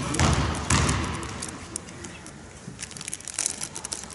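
A basketball bounced twice on a wooden sports-hall floor before a free throw, two heavy thuds about half a second apart, followed by low hall noise with faint scattered ticks.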